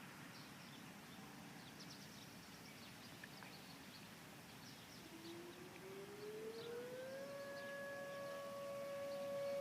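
Distant outdoor warning sirens winding up: a faint tone rises from about five seconds in, then settles into a steady wail that grows louder toward the end.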